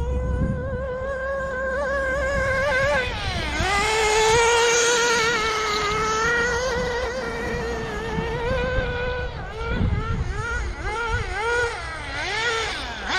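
Nitro RC car's small glow-fuel engine running at high revs, its pitch wavering as the throttle is worked, dropping sharply about three and a half seconds in and climbing back, then rising and falling in quicker swings near the end. The owner feels the engine is set a bit rich on the low-speed needle.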